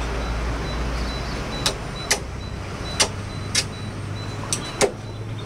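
Wind buffeting the microphone high on open scaffolding, a steady low rumble, with about six sharp knocks spread through it.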